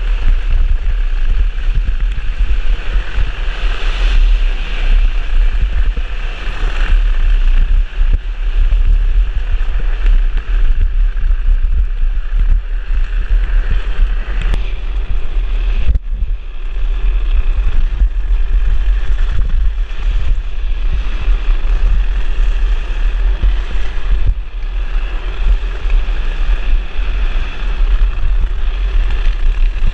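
Wind buffeting the microphone of a drift trike rolling fast downhill, mixed with the rasp of its wheels on asphalt.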